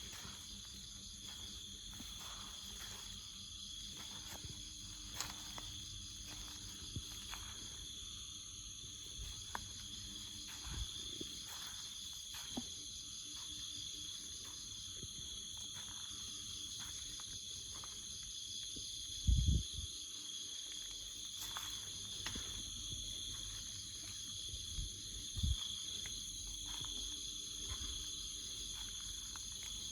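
Steady chorus of insects, several high, continuous tones holding without a break. Scattered short clicks and two low thumps, the louder about two-thirds of the way through, sound over it.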